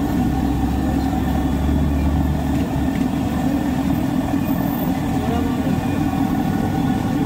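A steady low rumble, heaviest from about half a second to five seconds in, over the sizzle of bread pakoras deep-frying in a kadai of hot oil.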